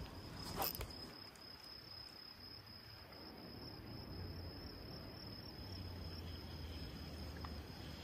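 An insect trilling steadily on one high pitch, with a short clatter about half a second in and a faint low hum coming in from about four seconds on.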